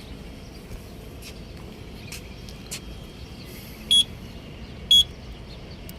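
Two short, high electronic beeps about a second apart from fire alarm control equipment, after a few faint clicks, as the first-stage fire signal is triggered in a test.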